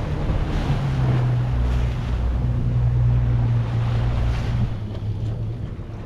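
Boat engine running with a steady low hum, under wind buffeting the microphone and the rush of water.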